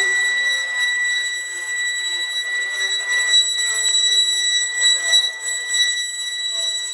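CNC router carving a wooden door panel: a steady high-pitched whine from the running spindle, with fainter shifting lower tones from the cutting underneath.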